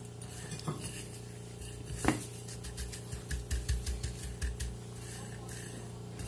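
Hands pressing a shrimp burger patty into panko breadcrumbs on a ceramic plate: light crackling and rubbing of the crumbs, one sharp knock against the plate about two seconds in, and a run of soft low bumps a little later, over a steady low hum.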